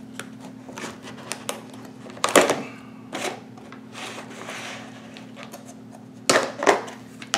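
Thin plastic takeout container being pried open by hand: the clear lid crackling and clicking against its black base, with louder crackles about two seconds in and again near the end.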